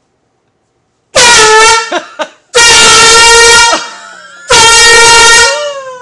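Handheld air horn blasted three times, very loud; each blast slides down in pitch as it dies away.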